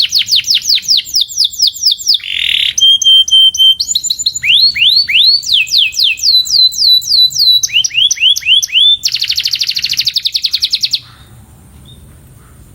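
Domestic canary singing a training song: series of quick repeated falling notes, a short buzzy note, a held whistle, then runs of rising and falling notes, ending in a fast trill that cuts off about eleven seconds in.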